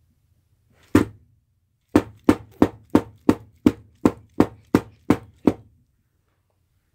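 Sharp knocking on something hard: a single knock, then a quick, even run of about eleven knocks at roughly three a second.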